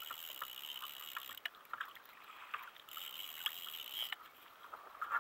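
Water lapping against a plastic kayak hull, with scattered small clicks and knocks.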